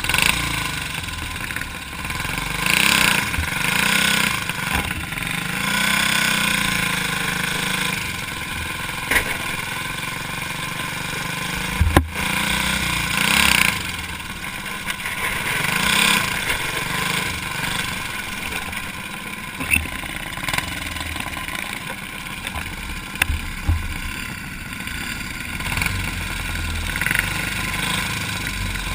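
Racing kart engine, heard from an onboard camera, running and revving up and down in waves as the kart pulls away and laps a dirt oval. A single sharp knock comes about twelve seconds in.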